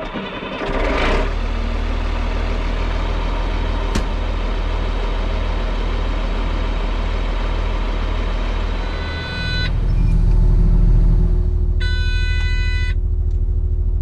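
Caterpillar 120H motor grader's diesel engine running steadily with a deep hum; about ten seconds in the engine note grows louder and heavier, as under load. Near the end its reversing alarm sounds one beep of about a second.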